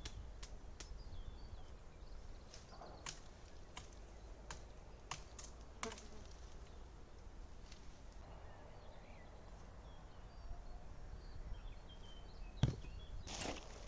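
Quiet outdoor ambience with scattered sharp clicks and light taps, faint short bird chirps, and one louder thump near the end.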